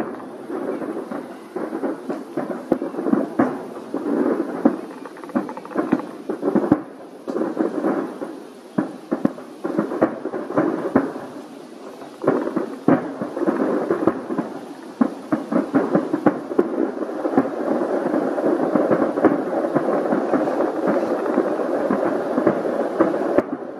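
Fireworks display: aerial shells bursting in rapid succession, with many sharp bangs over a continuous crackling that becomes dense and steady over the last several seconds.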